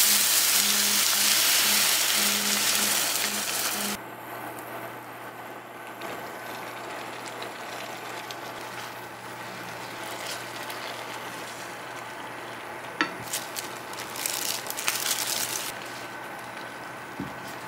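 Bacon and onion sizzling loudly in a frying pan as milk is poured over them. About four seconds in the sizzle drops suddenly to a low, quiet simmer, and near the end a click and a few short noises come from the pan as the spaghetti is worked in.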